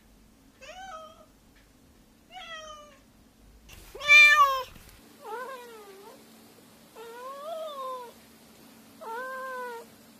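Domestic cat meows, six in all, with short gaps between them; the loudest comes about four seconds in, and the last three rise and then fall in pitch.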